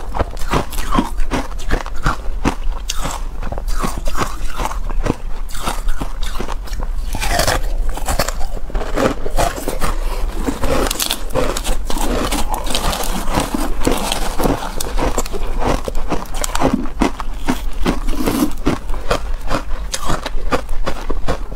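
Matcha-coated ice being bitten and chewed close to a lapel microphone: a dense, unbroken run of crisp crunches and crackles.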